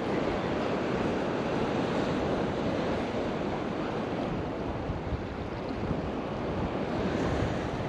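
Ocean surf washing steadily, with wind noise on the microphone.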